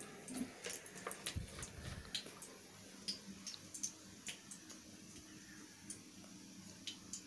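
Faint, irregular small clicks and ticks, with a soft low thump about a second and a half in.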